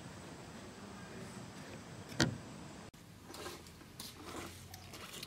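A single sharp snap of a plastic trim clip about two seconds in, as the trunk-lid trim on a Honda Accord is pried off its retaining clips, followed near the end by a few light clicks and taps of plastic being worked loose.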